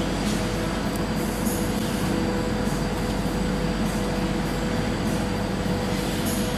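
Steady mechanical hum inside the Tiger Sky Tower's rotating observation cabin as it moves, with a few constant tones over an even rumble.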